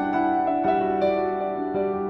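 Background music: soft, slow piano-like keyboard notes over a held low tone.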